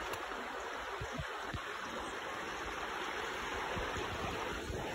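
Shallow stream running steadily over rocks in a riffle, with a few faint low thumps about a second in.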